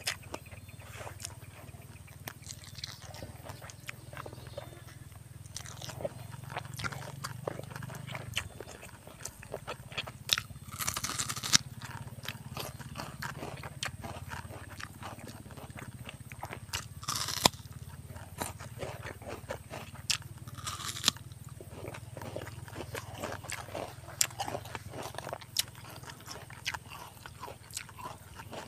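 Mouth sounds of someone eating: steady chewing with small clicks, and a few louder crunching bites scattered through.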